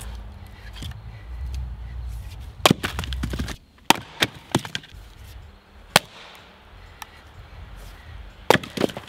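An axe chopping firewood rounds on a chopping block: several sharp chops, a second or more apart, as the wood splits.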